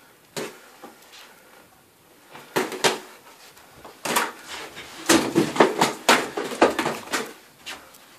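Boxing gloves landing punches on gloves and headguards during sparring: scattered single thuds, then a quick flurry of blows from about five seconds in.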